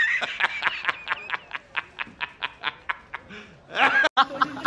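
A man laughing hard in a rapid, staccato run of short "ha" bursts, about six a second, fading as it goes, then a louder burst of laughter that cuts off suddenly near the end.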